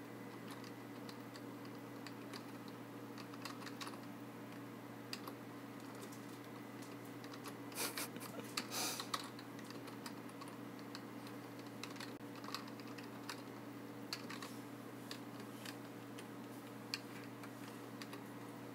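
Typing on a computer keyboard: scattered key clicks with a short flurry about eight seconds in, over a steady low hum.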